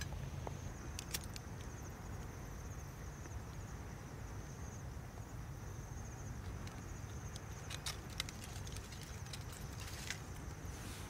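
A cricket trilling steadily in a high pulsing chirr, over a steady low rumble, with a few sharp clicks and rustles of dry twigs and leaves being handled in a small wood stove as it is lit.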